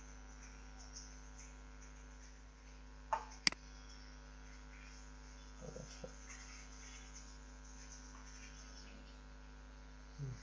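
Steady electrical mains hum on the recording, with a single sharp click about three and a half seconds in.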